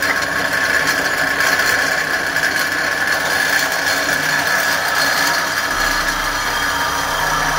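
A power tool running without a break: a steady high whine over a rough hiss.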